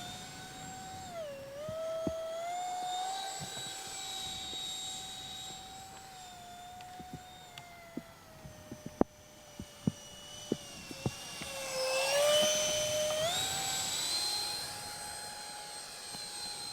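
Electric ducted fan of a small RC foam jet whining in flight, its pitch dipping and then climbing back twice as the throttle and distance change; it is loudest about twelve seconds in as it passes close. A scatter of sharp ticks sounds a little past the middle.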